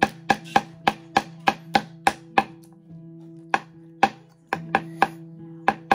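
Small hammer tapping on a toy car kit in quick, even strikes, about three a second, with a pause of about a second near the middle.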